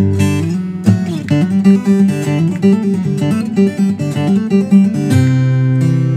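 Acoustic guitar played solo: a run of quick picked notes in a repeating figure, then a full chord struck about five seconds in and left ringing.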